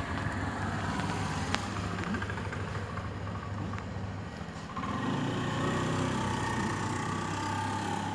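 An engine running steadily with a low hum, growing louder about five seconds in.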